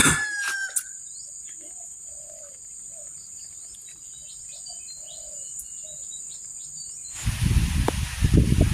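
An insect's steady high-pitched trill over rural ambience, with a few soft short calls underneath. About seven seconds in the trill stops and loud rumbling, rustling noise takes over.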